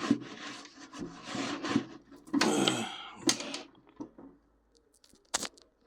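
Wiping the baked-on-grease-coated inside wall of a toaster oven: a run of rubbing strokes that stops after about three and a half seconds, then a single sharp knock near the end.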